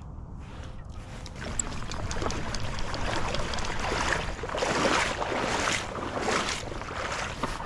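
Creek water splashing and sloshing in uneven surges, with a steady low wind rumble on the microphone.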